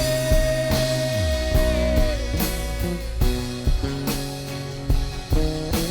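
Live worship band playing drum kit, bass and guitar between sung lines of a praise song. A long held note rings over the first two seconds.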